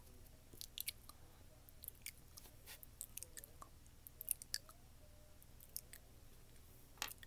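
ASMR mouth sounds: soft, irregular wet clicks and smacks, a few a second.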